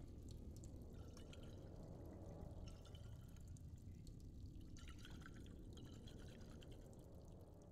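Faint dripping and trickling water over a low steady rumble, with scattered small drips, tailing off near the end.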